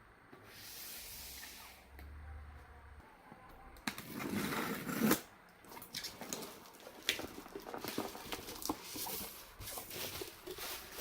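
Packaging being handled: a soft rustle or slide near the start, then from about four seconds in irregular rustling with many small knocks and clicks.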